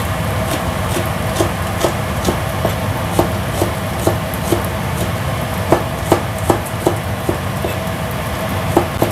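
A large kitchen knife chopping shallots on a cutting board: a steady run of knocks, about two a second, over a steady low background hum.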